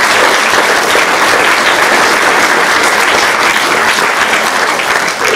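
A seated audience applauding: steady clapping from many hands that holds at full strength throughout.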